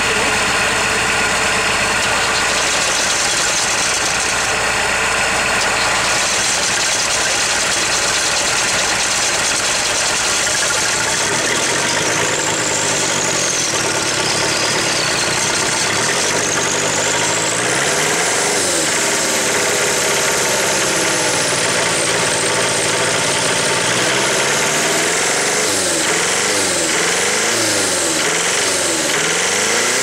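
Ford Transit turbo diesel engine running after a hard cold start, idling steadily at first, then revved up and down over and over from about halfway through, the revs rising and falling faster near the end.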